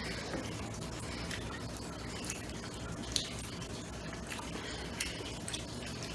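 People eating chicken nuggets: scattered short clicks and wet mouth sounds of chewing, about one a second, over a steady low hiss.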